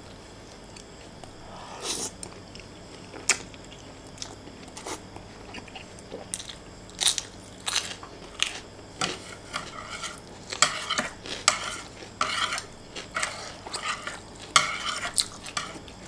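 Someone eating fried instant noodles with chopsticks: scattered sharp clicks of the chopsticks on a ceramic plate, then a quick run of chewing and biting sounds from about two-thirds of the way in.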